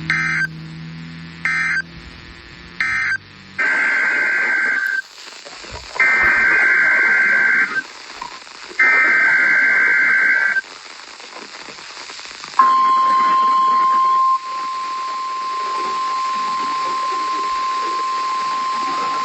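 NOAA Weather Radio alert signal heard through a radio receiver with background hiss. First come three short bursts of warbling two-tone SAME data, the end-of-message code. Then come three longer SAME header data bursts, and about two-thirds of the way in the steady 1050 Hz warning alarm tone starts and holds, marking a weekly test of the public warning system.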